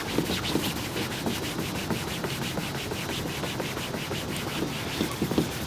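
Buffing cloth rubbed quickly back and forth over a textured plastic bumper: a rhythmic swishing of about four to five strokes a second.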